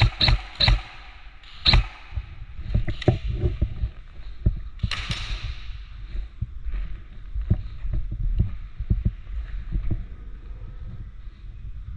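Irregular knocks and thumps with rustling and handling noise from a player moving with his gear, densest in the first two seconds, with a brief swish about five seconds in.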